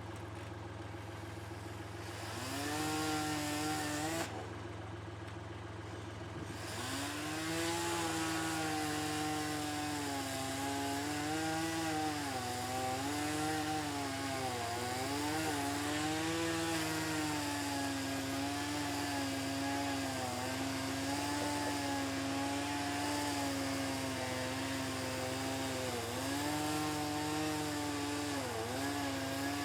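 Chainsaw running and cutting, its engine note wavering and dipping repeatedly as the chain bites and recovers, over a steady low engine hum. It starts about two seconds in, stops briefly, then picks up again a couple of seconds later.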